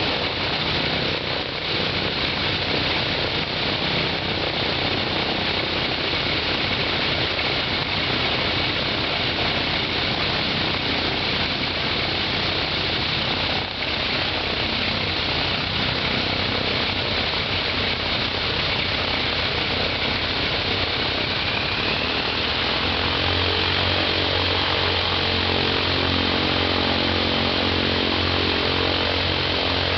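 Right engine of an Ilyushin Il-14T, a Shvetsov ASh-82T fourteen-cylinder radial, running on the ground with its propeller turning. About two-thirds of the way through it speeds up: a whine rises in pitch, a deeper, steadier drone comes in, and the sound grows a little louder.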